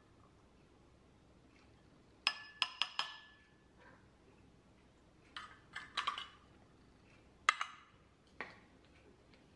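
Metal cat-food tins clinking and knocking against a bowl as the food is scooped and tapped out, then set down on the countertop. A quick run of about four sharp clinks a little over two seconds in, a busier cluster a few seconds later, then single knocks.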